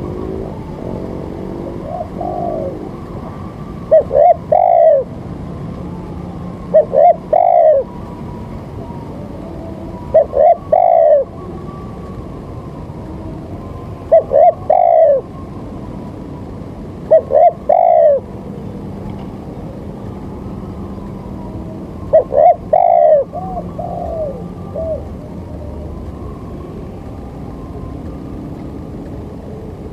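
A bird calling: six short phrases of two or three low, arched notes, each about a second long and repeated every three to four seconds. A few fainter notes come near the start and after the last loud phrase, over a steady background hum.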